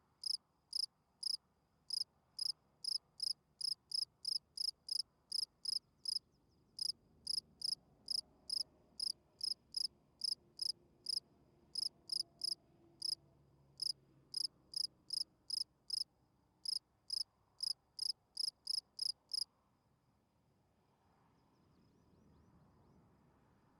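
Field cricket chirping its calling song: short, high, evenly spaced chirps about two a second, with a brief pause partway. It stops shortly before the end.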